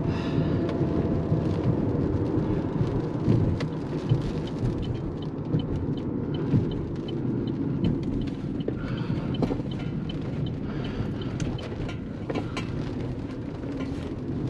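Car running, heard from inside the cabin as a low, steady rumble, with a short run of faint, evenly spaced ticks partway through.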